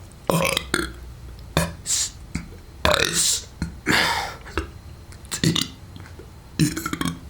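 A person burping letters of the alphabet: a string of separate short belched syllables, about seven in a row with short pauses between them.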